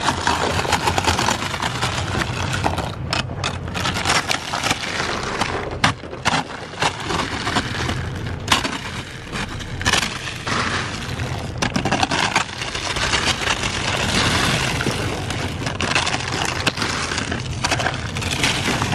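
Plastic ice scraper scraping and chipping a glaze of ice off a car windshield, with repeated cracks and crunches as the partly melted ice breaks loose in sheets.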